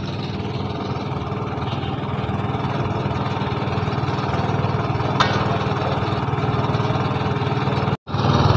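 A small engine running steadily at idle, an even low hum that drops out for an instant near the end.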